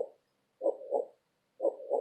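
Heartbeat sound: a steady lub-dub of two thumps per beat, about one beat a second.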